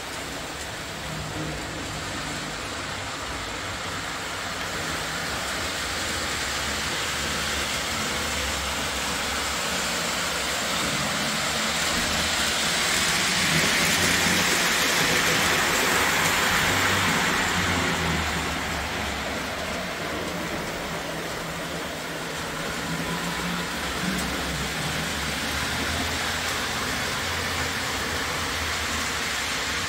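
Model train running on O gauge track: a steady rolling rumble of wheels on rail with a motor hum underneath, growing louder about halfway through as the train comes closer, then easing off again.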